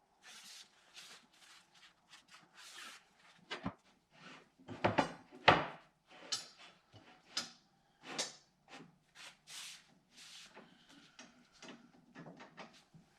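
Long metal CNC router rails being handled and shifted: a run of rubs and scrapes with a cluster of sharp clunks about five seconds in.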